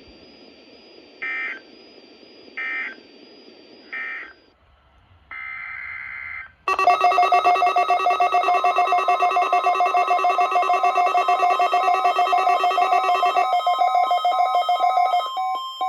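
NOAA Weather Radio Emergency Alert System digital data tones over radio hiss: three short chirping end-of-message bursts about a second apart, then a longer header burst. About seven seconds in, a loud, buzzy, rapidly pulsing warning alarm tone starts, changing pitch a little near the end, signalling the start of the next station's weekly test.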